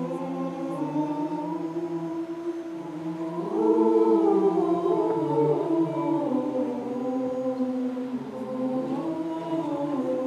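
A polyphonic school choir singing a Turkish march in several parts on held notes, swelling louder about three and a half seconds in.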